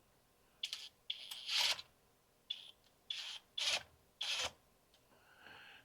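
A long engine-bracket bolt being run in with a tool: about six short rasping bursts in the first four and a half seconds.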